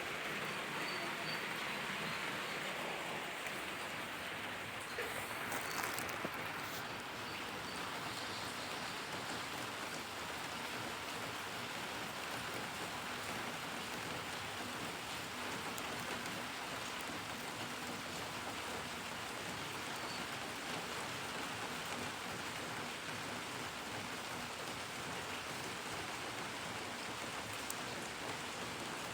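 Steady downpour of rain, an even hiss of countless drops on surfaces.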